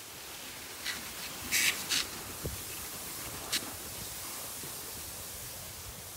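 Steady hiss of cross-country skis gliding over snow, with four short crisp crunches of snow in the first few seconds.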